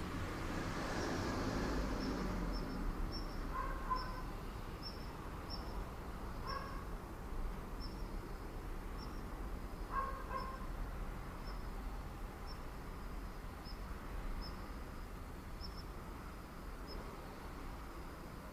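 Suburban outdoor ambience. A small creature chirps regularly and high, about one and a half times a second, and four short, lower animal calls stand out. A swell of noise over the first few seconds sounds like a vehicle passing.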